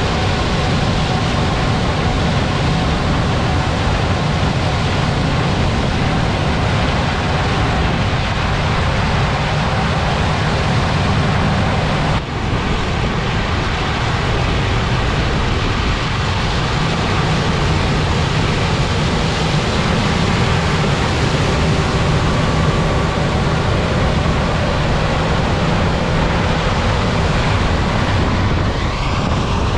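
Large farm tractor or harvesting machinery engine running steadily with a loud, even machine drone, broken once by a brief dip about twelve seconds in.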